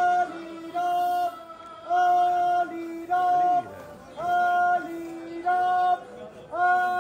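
Singing: a voice holds short steady notes on nearly the same pitch, one about every second, with brief slides between them.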